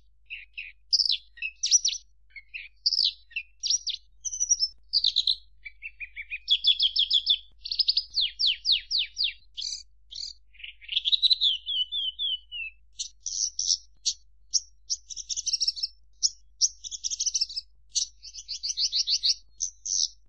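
Songbird song: varied high chirps, trills and quick runs of notes, one phrase after another with short gaps, including a falling run of notes about halfway through.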